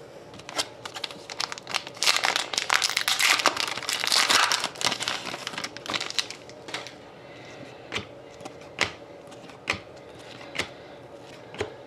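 Foil wrapper of a hockey card pack crinkling and tearing as it is opened, loudest for a few seconds in the first half. Then a series of sharp clicks, about one a second, as the cards are handled one by one.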